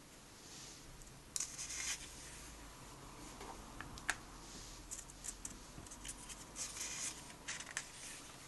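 Glossy comic book pages being turned and pressed flat by hand: several short bursts of paper rustling and crinkling, with a sharp flick of paper about four seconds in.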